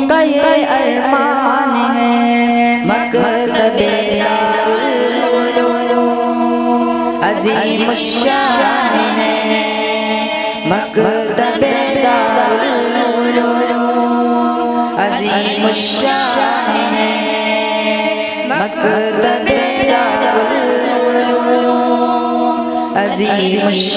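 Group of young boys singing an Urdu tarana (Islamic anthem) together through a microphone, in long held, wavering notes.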